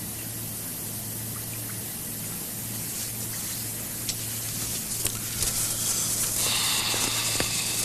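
Papyrus scroll rustling and crackling as it is handled and rolled up, louder in the second half, over a steady low hum.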